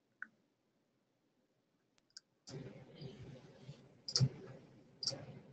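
A few sharp clicks in near silence; about halfway in, a webinar microphone is unmuted and its faint room noise comes in, with two louder clicks over it.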